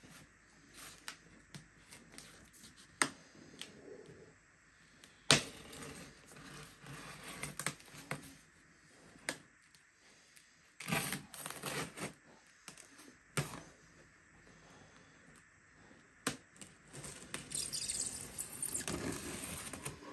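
Packing foam and cardboard being handled while a statue piece is unpacked from its box: foam popping and creaking, with a few sharp snaps and scratchy rustling in several stretches.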